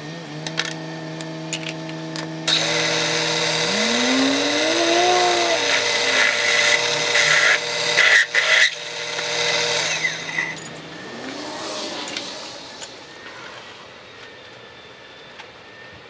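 Excello vertical milling machine running with its milling cutter cutting into a metal plate: a steady machine hum, then a loud, harsh cutting screech from about two and a half seconds in until about ten seconds, after which the cut stops and the sound dies down to a quieter hum.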